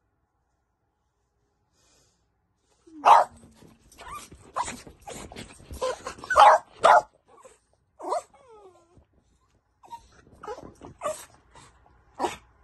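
Small terrier-type dogs, including a Yorkshire terrier, giving a string of short, excited barks mixed with whines. They start about three seconds in, with a falling whine around the middle.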